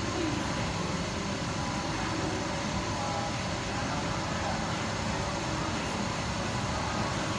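Steady rushing hiss of a hot-air rework station's blower, heating the logic board to solder the chip back in place.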